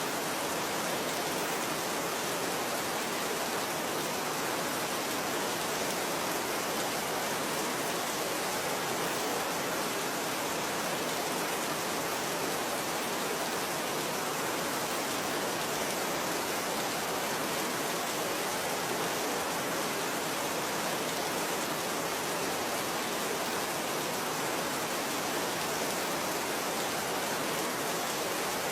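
Steady rain falling, an even, unbroken hiss of drops that keeps the same level throughout.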